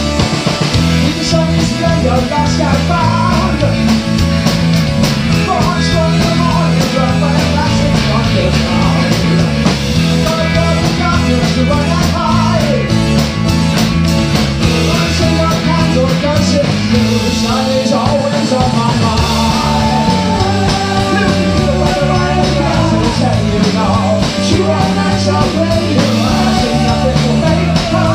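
Live rock band playing through a PA: drum kit, electric guitars and keyboard, loud and unbroken.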